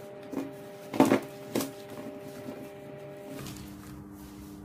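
Oiled potato wedges and vegetables tipped from a glass dish onto a parchment-lined baking tray, landing in a few soft knocks in the first couple of seconds, the loudest about a second in. Quiet background music plays throughout.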